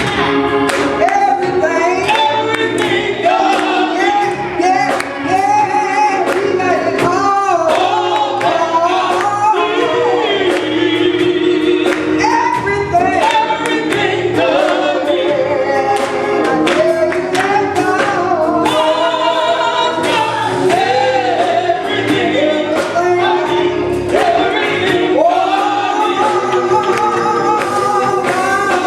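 Gospel singing by a choir of men's and women's voices, over a steady beat of sharp percussive hits.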